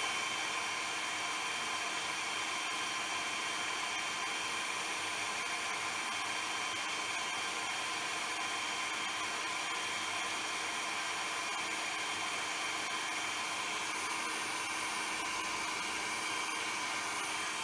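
Food processor motor running steadily on its puree setting, blending cooked cauliflower into a smooth puree; an even, high whirring hiss.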